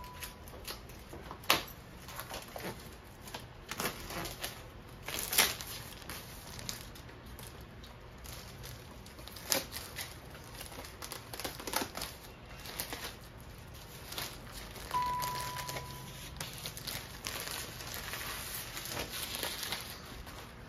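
Clear plastic wrapping crinkling while a slatted bamboo board is unwrapped and handled, with scattered light knocks and clicks of the wood. A short steady beep sounds about three quarters of the way through.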